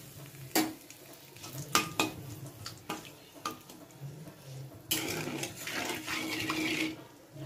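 Metal spatula clicking and scraping against an aluminium kadai while bay leaves fry in hot ghee. A louder hiss of sizzling and scraping starts about five seconds in and lasts about two seconds.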